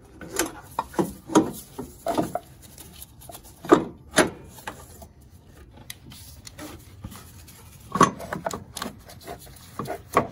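A new upper engine mount being worked into place by hand against the metal mounting bracket and studs, with the plastic coolant reservoir pushed aside. Irregular rubbing and scraping, with several sharp knocks.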